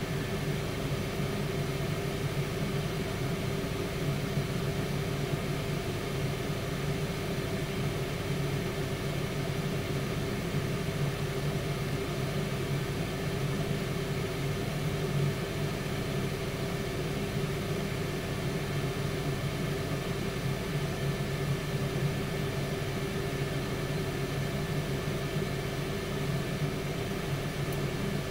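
Tower air fryer oven running, its fan giving a steady, even hum with a low drone underneath.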